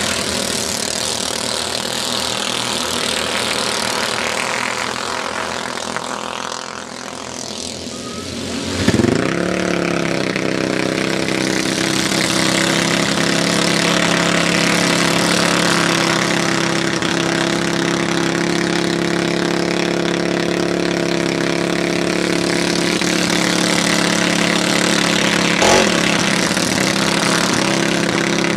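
Small single-cylinder four-stroke clone kart engines running hard as a pack of racing karts laps a dirt oval. The engine noise dips briefly, then swells sharply about nine seconds in into a steady, strong engine note.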